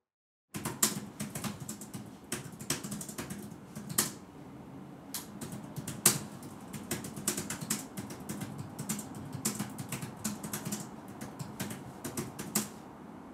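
Typing on a computer keyboard: a quick, irregular run of keystroke clicks that starts about half a second in and stops just before the end.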